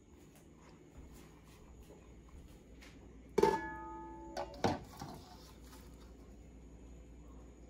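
Stainless-steel mixing bowl knocked against the pot of a stovetop double boiler: one sharp metallic clang that rings with several tones for about a second, followed by two lighter knocks.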